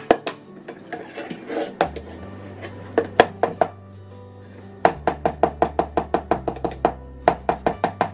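Background music with a quick, regular plucked beat over a bass line. A spoon scrapes and taps against a plastic blender jar as thick dressing is scooped out.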